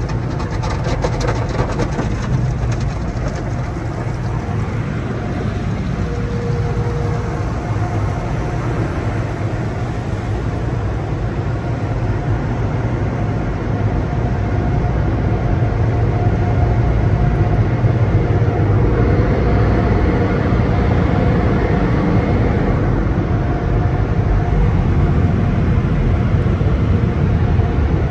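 Automatic tunnel car wash heard from inside the car's cabin: water spraying and sheeting on the glass while cloth mitter strips and wrap brushes wash the car, over a steady machinery rumble with a faint motor whine. It gets a little louder about halfway through.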